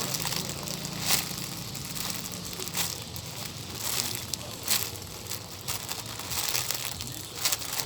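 Crinkling and rustling handling noise, broken by a few short crackles, as squishy toys are picked up and handled.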